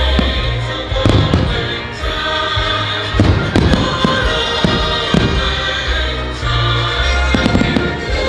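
Fireworks going off, with repeated bangs and crackles throughout, over loud show music playing through the park's speakers.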